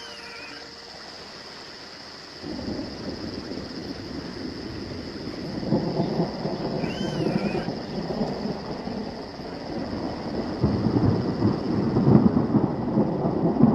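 Deep rolling rumble of thunder, starting a couple of seconds in and swelling louder toward the end, over a steady high hiss, with one short call about halfway through.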